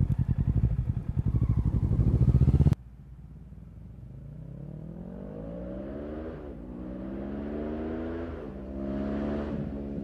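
Kawasaki ER-6n parallel-twin engine through a full Akrapovic exhaust with no dB killer. A loud, evenly pulsing engine sound cuts off suddenly about three seconds in. The engine then comes back quieter, accelerating through the gears: its pitch climbs and drops at each upshift, twice and then once more near the end.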